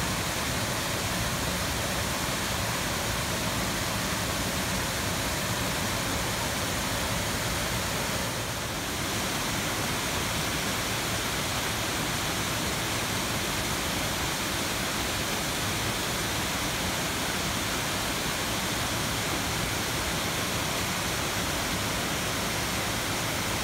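Waterfall pouring into a pool: a steady, dense rush of falling water with a brief dip about eight and a half seconds in.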